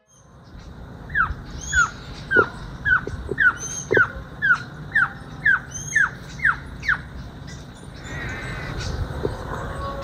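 Cuban pygmy-owl calling: a regular series of about a dozen short falling notes, about two a second, which stops a few seconds before the end.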